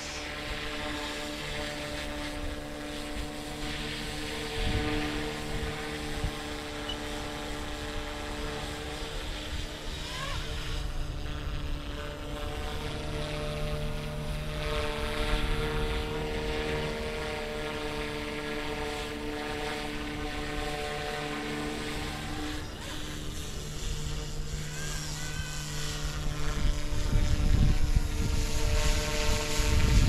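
Flite Wing 200 electric RC helicopter in flight: a steady pitched whine of the motor and spinning rotor, holding several even tones. Wind rumbles on the microphone and grows louder near the end.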